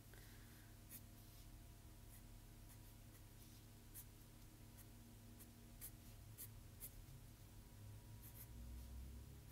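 Black felt-tip marker drawing on paper, faint, in short irregular strokes with a few sharper ticks of the tip against the page.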